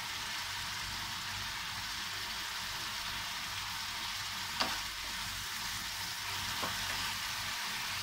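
Grated carrot in milk, sugar and ghee sizzling and bubbling steadily in a frying pan as the liquid from the sugar is cooked off, with two brief clicks about four and a half and six and a half seconds in.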